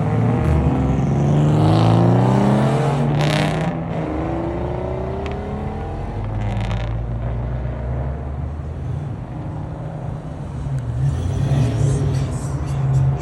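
Performance car engines and exhausts running loud. A few seconds in, one engine accelerates with its note climbing in pitch. A lower engine rumble continues after that and grows louder near the end.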